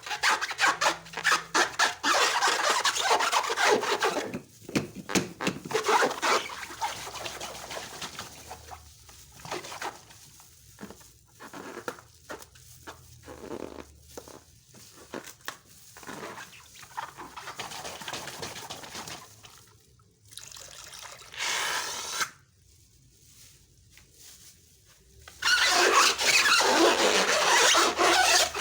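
Slime being mixed and squished by hand: sticky rubbing and scraping sounds that come in bouts with pauses. There is a short squeak a little past the middle and a loud stretch of handling near the end.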